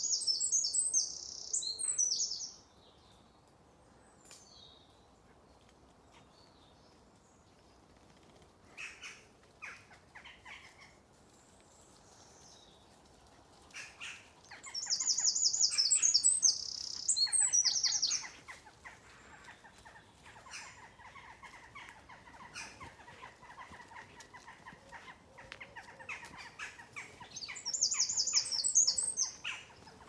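A songbird singing three loud, high-pitched song phrases, each about two to three seconds long and roughly fourteen seconds apart. Quieter short chirps and calls fill the gaps between them.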